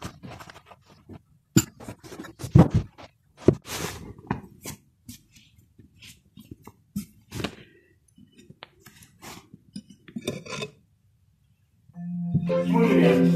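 Dishes and cutlery clinking and clattering in irregular, sharp knocks and clinks. Background music starts near the end.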